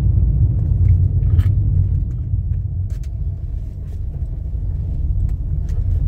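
Steady low rumble of a car's engine and tyres on the road, heard from inside the cabin while driving, with a few light clicks and rattles.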